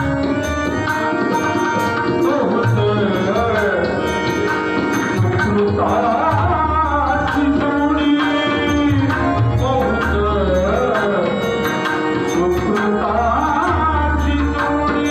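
Devotional bhajan performed live: a male singer's full-throated voice over harmonium, with pakhavaj and tabla drumming a steady rhythm.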